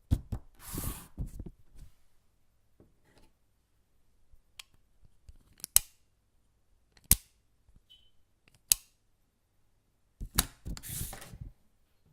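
Sharp snaps and clicks made with a household object: a quick cluster of snaps with a scraping rasp near the start, three single sharp clicks spaced over the middle, and another rapid cluster of snaps near the end.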